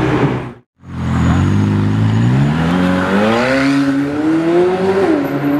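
McLaren Senna's twin-turbo V8 accelerating away, its pitch climbing steadily for about four seconds, then dropping sharply about five seconds in at an upshift. The sound cuts out briefly just under a second in.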